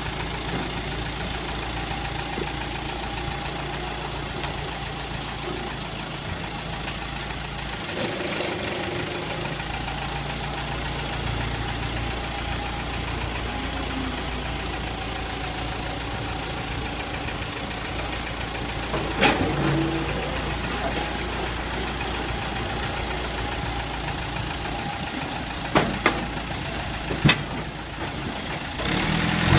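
1990 JCB 3CX backhoe loader's four-cylinder Perkins diesel engine running steadily as the front bucket works, with a few sharp knocks about two-thirds of the way through and near the end.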